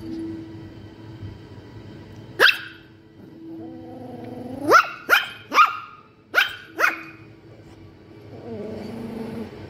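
Small poodle puppy barking in play: six short, high barks, one about two seconds in and a quick run of five in the middle, with low growls before and after the run.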